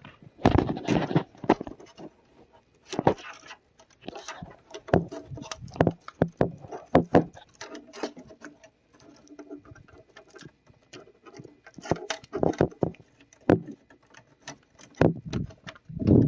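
Irregular clicks, taps and rustling of hands handling cables and parts inside a desktop PC case.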